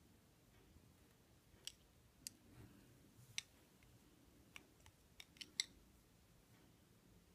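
Light, sharp clicks and taps from watercolour painting tools being handled off to the side, about eight of them, most closely spaced a little after the middle, over an otherwise quiet room.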